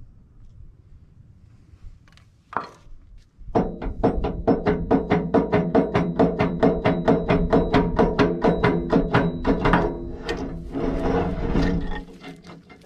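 Impact wrench hammering in a rapid, even rhythm for about six seconds, with a thin motor whine over it, then a rougher stretch before it stops. A single knock comes shortly before it starts.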